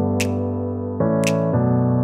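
Background music: sustained keyboard-like chords that change about a second in, with a short, light percussion hit about once a second.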